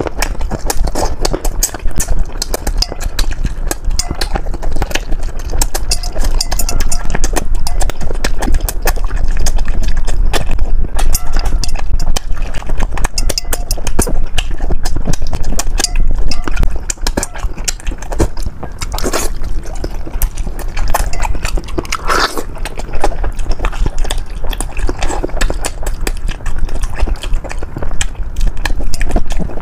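Close-miked mouth sounds of eating braised soft-shelled turtle: sucking, slurping and chewing on the meat and skin, with many rapid smacking clicks.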